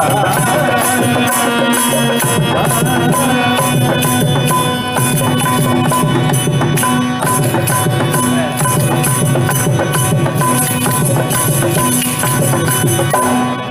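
Carnatic devotional bhajan music in raga Brindavana Saranga, played by a live ensemble of mridangam, harmonium and flutes with a steady rhythmic beat.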